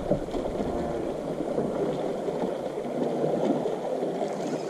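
Water lapping and gurgling against the side of a fishing boat, an irregular, fairly loud splashy wash.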